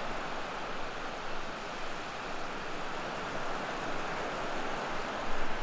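Calm surf washing onto a beach: a steady, even hiss of small waves.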